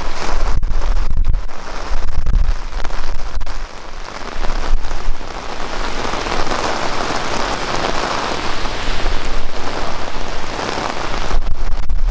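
Rain falling, a steady loud hiss, with low rumbling from wind on the microphone at the start and again near the end.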